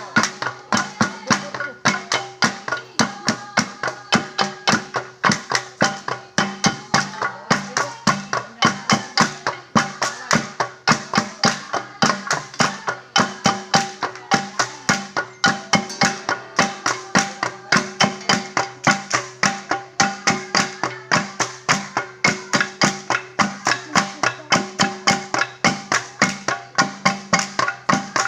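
Ifugao gong ensemble of flat gongs (gangsa) playing traditional ritual music: a fast, steady, even beat of metallic strikes with ringing pitches, unchanging throughout.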